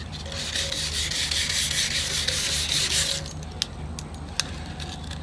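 220-grit sandpaper rubbed by hand back and forth over the freshly painted red outboard gas tank for about three seconds, then stopping. This is a quick scuff test of whether the five-minute-old coat has dried.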